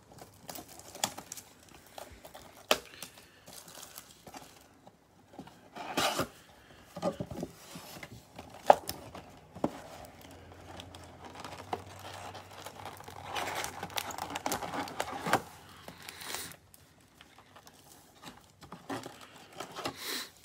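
A cellophane-wrapped trading-card box being torn open: the cello wrap and cardboard lid tearing, then the wrapped card packs crinkling and rustling as they are pulled out and stacked. The sounds come in short irregular bursts with pauses, with a longer stretch of crinkling about two-thirds of the way through.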